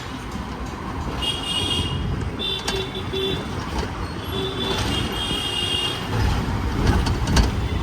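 Busy street traffic with vehicle horns honking several times over the engine and road noise, some honks short and some held for over a second.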